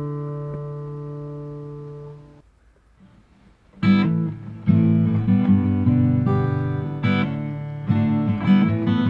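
Guitar background music: a held chord rings and fades out, then after a pause of about a second and a half a strummed passage starts again, about four seconds in.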